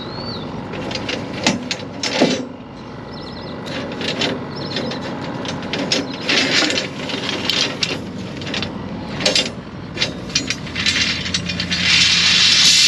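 Steel rebar bars clanking and scraping against one another as bundles of bent dowels are gathered and lifted by hand, many separate knocks throughout, over a steady low engine hum. Near the end a louder rushing noise.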